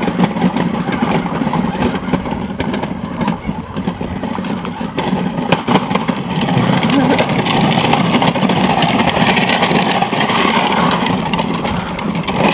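Ride-on toy truck converted to RC, driven by a 2150kv brushless electric motor: the motor and drivetrain whine and rattle steadily as the truck drives across grass, getting louder about six and a half seconds in as its hard plastic wheels roll onto pavement.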